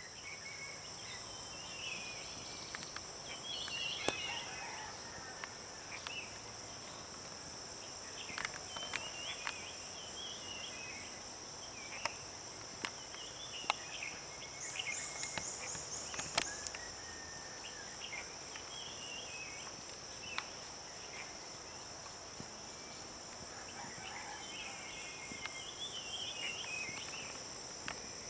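A steady, high-pitched insect chorus, with birds chirping on and off and a few sharp clicks.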